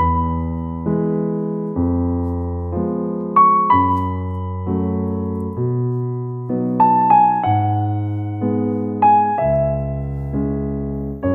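Background music: a gentle electric piano melody over chords, the chords changing about once a second.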